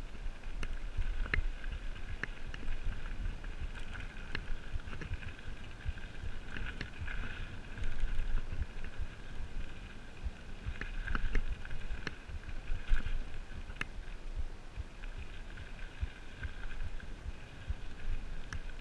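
Mountain bike riding fast down a dirt singletrack: tyres rolling over packed dirt and stones, with frequent knocks and rattles from the bike over bumps and a low wind rumble on the camera. A steady high buzz runs underneath, stronger in a few stretches.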